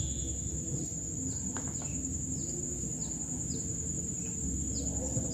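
Steady high-pitched insect drone from crickets, with about five short falling bird chirps through the middle, over a low rumble.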